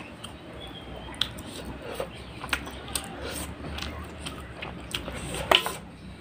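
Eating rice and fish curry by hand: fingers squishing the food on a steel plate, then a mouthful chewed with wet smacks and clicks, the loudest about five and a half seconds in.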